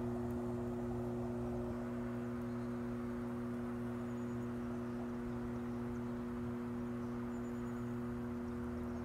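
Electric potter's wheel running during throwing: a steady motor hum made of a couple of held tones, one of which drops out about two seconds in.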